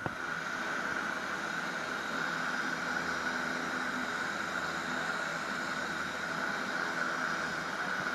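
Small propeller aircraft's engines running steadily: a constant drone with a strong, steady high whine, starting abruptly.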